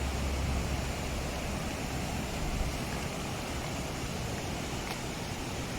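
Steady rushing of water from a mountain waterfall, an even roar with no breaks; a low vehicle hum fades away in the first second.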